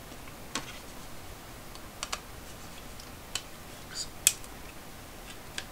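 Scattered sharp clicks and taps, about seven, the loudest about four seconds in, from the plastic back case of a Casio fx-7400G Plus calculator being handled and worked with a small metal tool.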